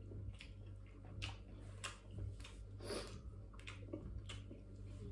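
Faint eating sounds: scattered soft clicks and smacks of a person chewing food, over a low steady hum.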